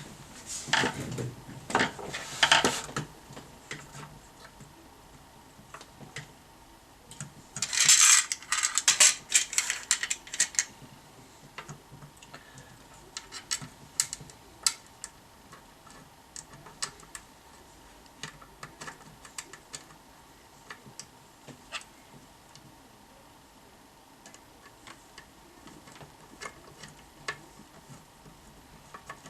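Small hard objects being handled: clicks and rattling, with a louder clatter about eight seconds in and scattered single clicks after it, like tools and small parts on a workbench.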